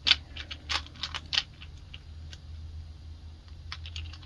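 Small metallic clicks and taps of tools and parts on an outboard carburetor being reassembled, about ten quick ones in the first second and a half, a few scattered after, and a short cluster near the end, over a steady low hum.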